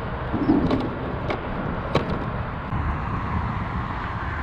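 Steady wind noise on the microphone and water lapping around a kayak on choppy water, with three sharp clicks or knocks of gear being handled in the first two seconds, about half a second apart.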